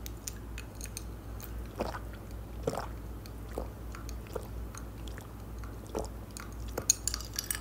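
Close-miked swallowing while drinking from a glass: a run of soft gulps, about one a second, with small mouth clicks.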